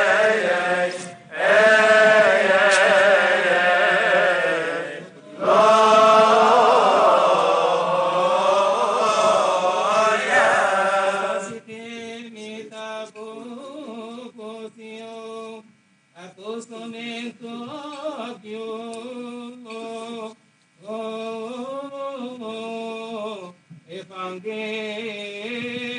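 Male deacons chanting a Coptic liturgical hymn together, loud and full for about the first eleven seconds. Then the chanting turns quieter: a slower melody in separate held phrases with short breaks between them.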